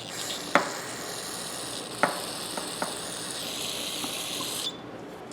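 Aerosol cleaner spraying in a steady hiss onto the small parts of a disassembled ratchet, cutting off sharply near the end. A few light clicks of metal parts are heard under the spray.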